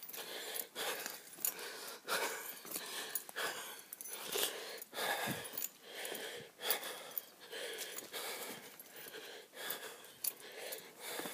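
Walking through forest undergrowth: footsteps about twice a second, with plants and clothing rustling.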